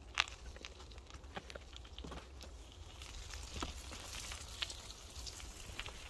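Bicycle riding over a rough, muddy woodland trail: irregular clicks and crackles from the tyres and the bike over a steady low rumble. The sharpest click comes about a quarter of a second in.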